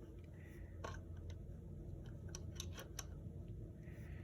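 Faint scattered clicks and taps of plastic parts being handled as a circuit board is slid into the guides of a plastic DIN rail enclosure, with a cluster of clicks around the middle.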